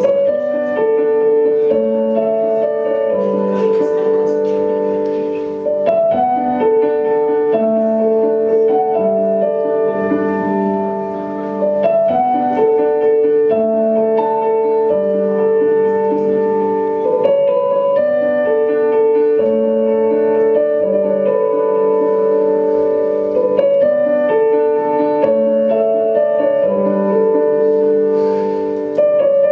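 Slow piano music, its notes held for a second or more.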